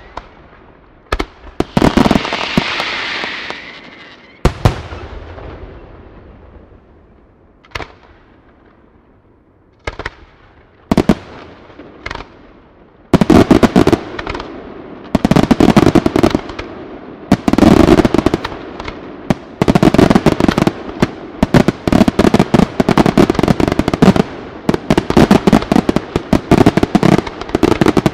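Aerial firework shells bursting in a display. In the first half come separate bangs, one of them followed by a few seconds of hissing crackle. From about halfway, bangs come thick and fast in a continuous rapid barrage.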